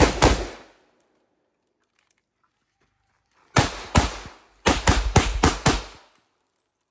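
Gunfire in a rifle-to-pistol transition: two quick shots from an AR-15/M4-style rifle, a pause of about three seconds, then pistol shots, two and then a fast string of about five more.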